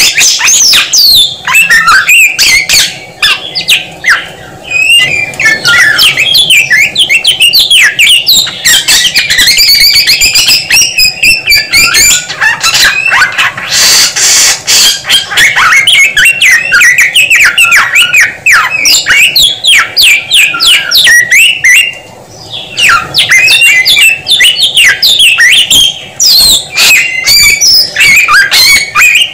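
Samyong songbird singing loudly and almost without a break, a long, varied run of rapid whistled and chattering phrases. There is a harsh, rasping stretch around the middle and a brief pause a little later.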